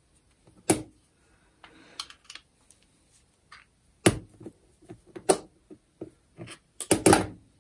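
Scattered sharp clicks and taps of pliers and small metal parts being handled while a nut is unscrewed from a fan's swivel clutch shaft, with a quick cluster of clicks near the end.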